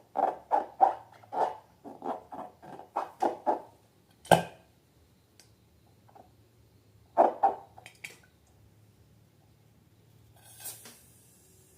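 Rubber balloon squeaking in a quick run of short squeaks, about three a second, then a single sharp snap about four seconds in, and two more squeaks a few seconds later.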